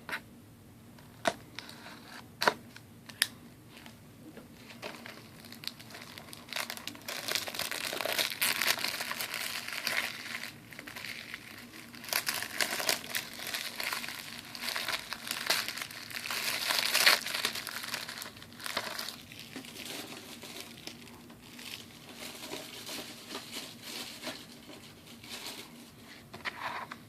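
Plastic shrink-wrap on a DVD case being cut and peeled off, crinkling and tearing. A few sharp clicks come in the first few seconds, and the crinkling is densest in the middle before tapering off.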